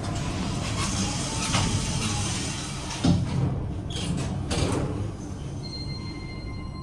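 Schindler 5500 lift's car doors sliding shut, with a knock about three seconds in as they close. The car then starts down with a low steady rumble and faint steady high-pitched tones near the end.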